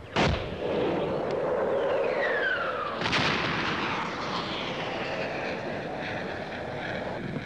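Two heavy explosions from a bombardment, one just after the start and a second about three seconds in, with a high falling whistle just before the second. The long rumble and echo of the blasts carry on after them.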